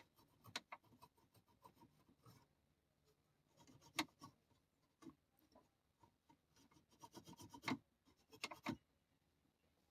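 Faint, scattered clicks and short scrapes of metal engine parts being handled, the sharpest about four seconds in and a cluster between about seven and nine seconds.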